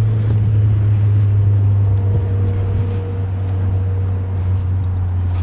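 A steady, unbroken low rumble with a faint higher hum over it, carrying on without a break.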